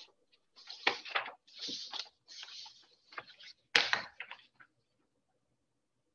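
Knocks and rustling handling noise through a video-call microphone: two sharp knocks, about one second in and nearly four seconds in, among scraping rustles, cutting off to silence after about four and a half seconds.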